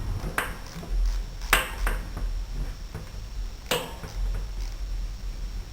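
A handful of sharp metallic clicks and clinks as hand tools work the screws on a starter motor's metal housing and brush holders, the loudest about one and a half seconds in.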